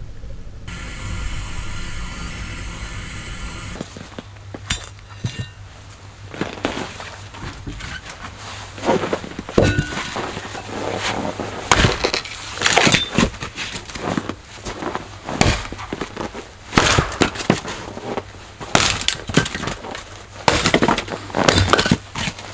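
Firewood being split with a hatchet on a stump chopping block: repeated sharp chops and the wood cracking apart. The strikes begin about four seconds in, irregular and often several a second.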